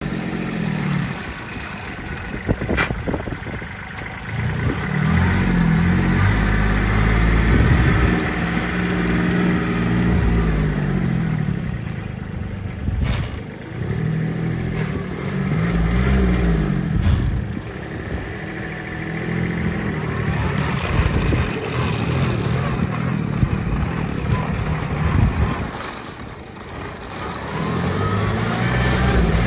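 Compact tractor engine running as the tractor is driven around, its pitch and loudness rising and falling as it comes near and moves away several times.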